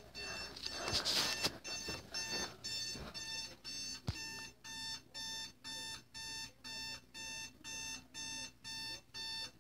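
Fire alarm with a strobe sounding a pulsing electronic beep, about two beeps a second, each beep several pitches at once. A brief hiss about a second in and a sharp click about four seconds in.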